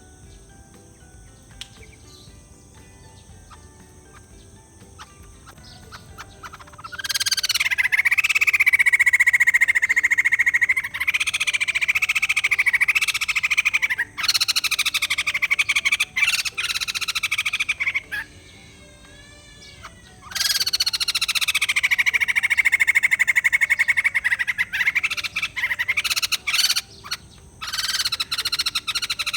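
White-crested laughingthrush calling in loud, harsh, rattling chatters, in long bouts of several seconds. The calls start about a quarter of the way in, after a quieter stretch with only faint high steady tones.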